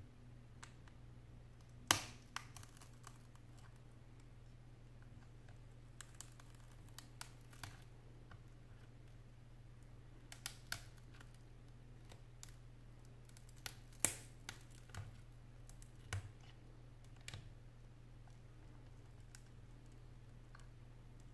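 Scattered small sharp clicks and scrapes as a metal pick is worked between the damaged touchscreen glass of an iPad 4 and its aluminium frame, prying the glass loose. The loudest clicks come about two seconds in and again about fourteen seconds in, over a steady low hum.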